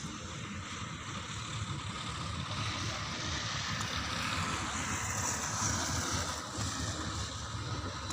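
Heavy diesel machinery running steadily with a low rumble, with wind noise on the microphone. A faint whine falls in pitch through the second half.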